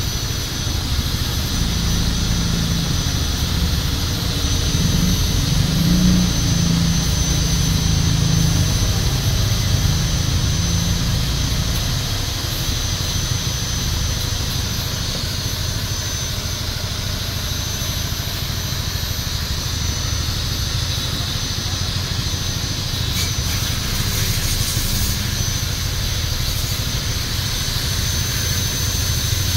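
Steady machine drone with a low rumble, heavier for the first twelve seconds or so, and a thin high whine held throughout.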